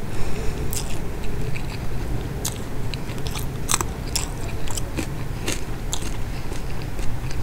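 Close-miked mouth sounds of a person chewing rice and Bombay duck curry, with irregular crisp clicks and crunches. The sharpest crunch, about halfway through, fits a bite into a fresh green chilli.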